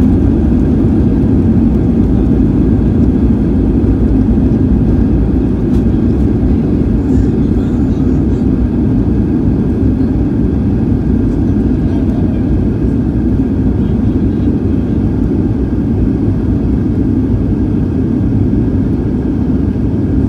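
Cabin noise of a Boeing 737-800 rolling along the runway after landing: a steady, loud low rumble of its CFM56 engines and wheels, easing slightly as it goes.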